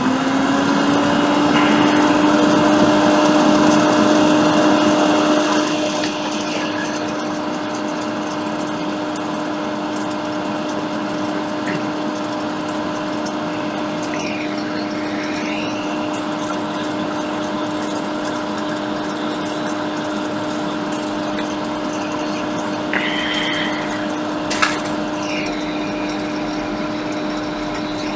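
A small electric fan motor spins up, its hum rising in pitch and then holding steady, with a strong rush of air for the first six seconds before the airflow drops to a quieter hiss. A couple of light clicks come near the end.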